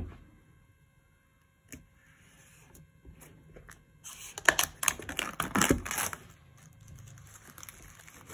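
Plastic shrink-wrap crinkling and crackling as fingers pick at and peel it off a cardboard phone box, with a few light taps first; the crinkling is densest and loudest about four to six seconds in.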